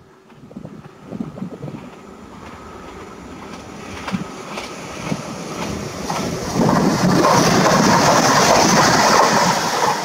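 Newag Impuls II electric multiple unit approaching along the line: a rumbling rail noise with scattered wheel clicks that grows steadily and is loudest in the second half.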